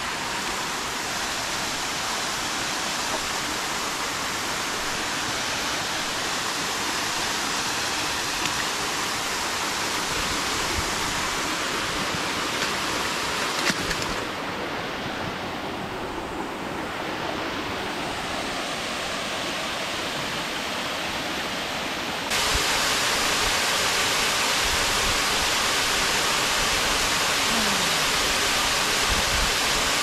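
Waterfall pouring into a pool: a steady, dense rush of falling water. About 14 seconds in it turns duller and a little softer, then about 22 seconds in it jumps suddenly louder and brighter.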